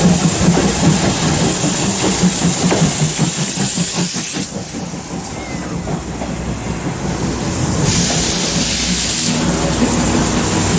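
Train running, a steady rumble and hiss with a low hum, which drops quieter for a few seconds in the middle before coming back up.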